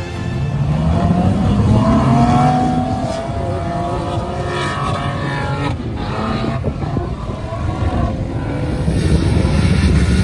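Four-wheel-drive SUV engine revving hard under load as it climbs a steep sand dune, its pitch rising over the first couple of seconds, followed by more engine revving.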